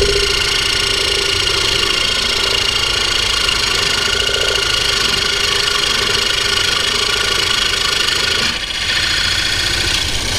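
An electric power tool's motor running steadily with a high whine that holds one pitch, dipping briefly about eight and a half seconds in.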